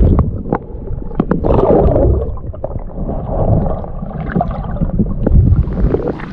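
Muffled underwater gurgling and sloshing heard through a camera microphone held under the water, with scattered sharp clicks. Near the end the sound brightens as the camera comes up toward the surface.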